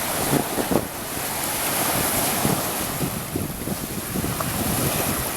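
Ocean surf washing on the beach, with gusty wind buffeting the microphone and a couple of brief low thumps under a second in.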